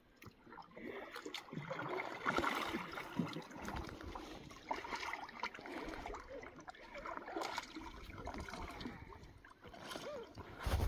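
Kayak paddle blades dipping and pulling through calm lake water in irregular strokes, with small splashes, drips and water lapping against the hull.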